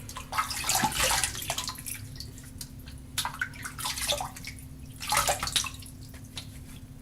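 Running water splashing as a shaving brush is wetted under it, in three short bursts.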